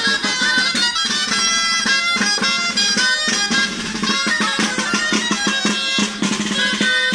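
Basque street band of high folk pipes playing a lively tune over a steady drum beat, with a held low tone underneath.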